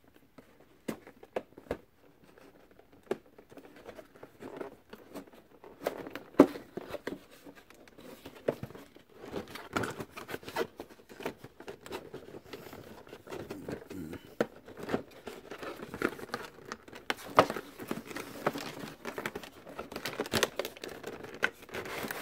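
Cardboard box and clear plastic packaging tray being handled and opened: irregular crinkling, scraping and light knocks, with a few sharper taps.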